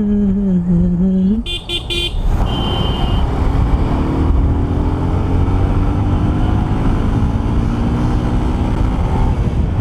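Road traffic heard from a moving motorcycle, with steady wind and road rumble. A horn toots three quick times about a second and a half in, followed by a second short horn note, then an engine's pitch climbs slowly as it accelerates.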